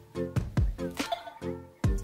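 Background music: short synth-like notes over a deep, regular beat.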